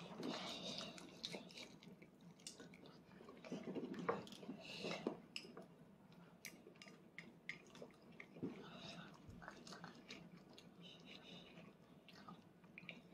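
Faint sounds of a small child eating: chewing, with scattered small clicks of plastic training chopsticks against a rice bowl.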